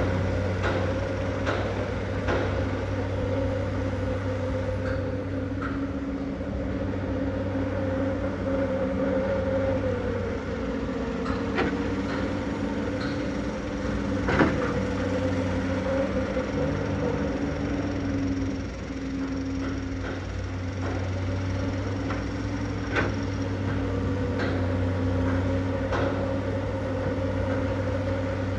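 Komatsu PC210LC excavator's diesel engine running steadily, its note shifting slightly as the machine works, with a few sharp metallic knocks.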